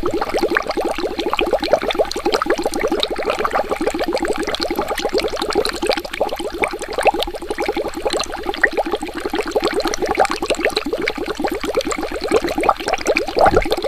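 Water bubbling steadily: a rapid, continuous stream of small bubble pops.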